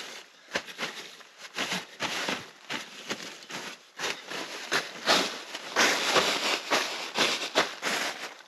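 Irregular rustling and crackling of dry forest debris such as leaves and twigs, in quick, uneven bursts that come thicker and louder in the second half.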